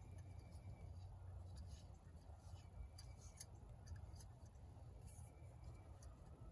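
Faint, scattered small metallic clicks and scrapes as a GasOne GS-7800 backpacking stove is screwed onto the threaded valve of a butane/propane canister, over a low steady background rumble.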